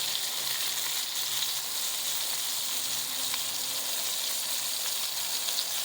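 Blackfin tuna and wahoo medallions frying in bacon grease in a pan: a steady sizzle with a few faint pops.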